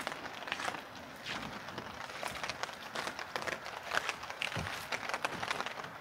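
Rain falling steadily, with footsteps climbing wet wooden stairs onto a wooden boardwalk: irregular knocks and taps over an even hiss of rain.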